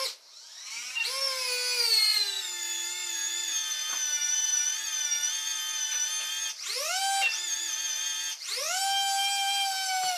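Small electric winch motor and gearbox whining as they hoist a model steel excavator. The pitch rises each time the motor starts and then holds steady. It stops and restarts twice in the second half, and winds down near the end.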